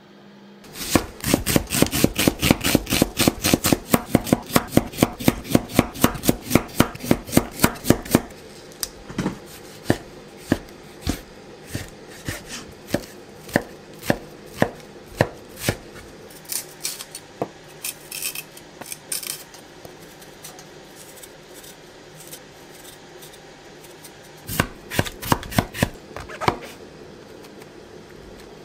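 Kitchen knife chopping vegetables on a wooden cutting board: a fast, even run of strokes at about four a second for the first several seconds, then slower, scattered cuts, and another quick flurry of chops near the end.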